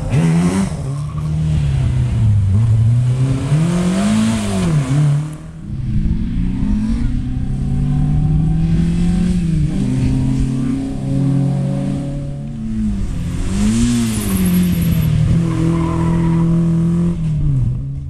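Historic rally cars driven hard past the spectators one after another, each engine revving up and dropping back several times as the car accelerates and shifts gear.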